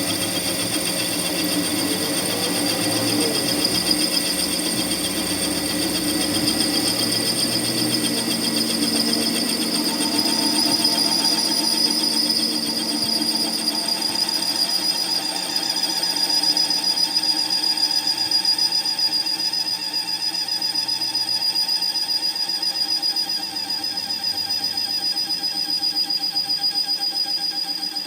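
A workshop machine tool running steadily on metalwork, with a constant high-pitched whine over a fast, even rattle.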